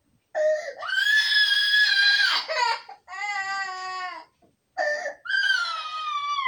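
Young child crying and screaming in a string of high-pitched cries: a long held cry about a second in, a lower falling cry around three seconds, and a falling cry near the end. The child is crying for a parent who has left the room.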